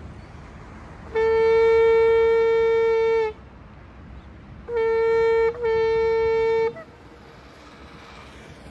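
Shofar blown in three notes: one long steady note of about two seconds, then two shorter notes close together at the same pitch, the last ending in a brief upward flick.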